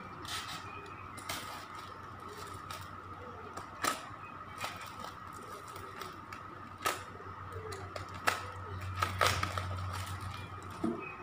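Kraft-paper plant bag rustling and crinkling as it is handled, with several sharp crackles of the stiff paper.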